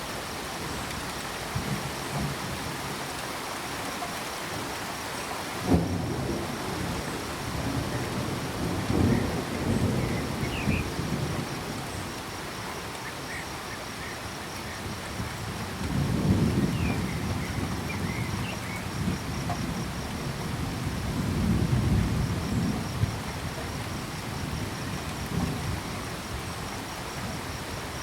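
Steady rain with thunder: a sudden clap about six seconds in, then low rolling rumbles that swell and fade several times. Behind it runs a faint, steady, pulsing cricket trill, and a few short frog chirps come through in the middle.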